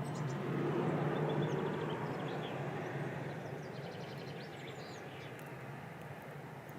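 A distant engine's low rumble, swelling about a second in and slowly easing off, with small birds chirping faintly over it.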